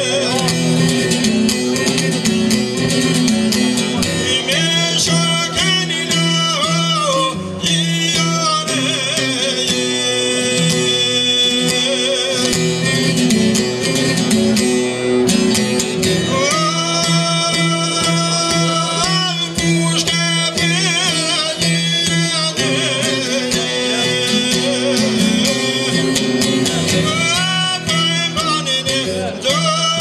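A man singing an Albanian folk song in long, ornamented phrases with wavering held notes, accompanied by a steadily strummed long-necked lute.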